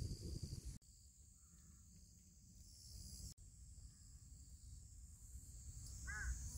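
Insects, crickets among them, trilling steadily in the grass over a low rumble, with a short chirp near the end.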